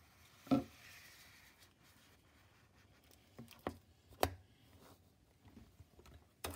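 Handling of a cardboard Apple Pencil box: a sharp tap about half a second in followed by a soft sliding rustle as the slide-out tray is drawn, then two light knocks around four seconds in, and a burst of rustling near the end.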